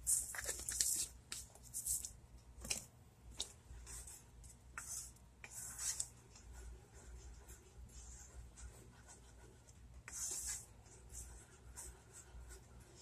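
Wooden spoon stirring barbecue sauce in a saucepan: faint, intermittent scraping and swishing strokes against the pot.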